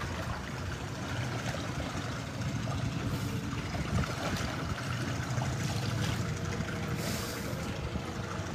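A boat's motor running steadily, with water and hiss from the boat's movement over it. A brief louder rush of hiss comes about seven seconds in.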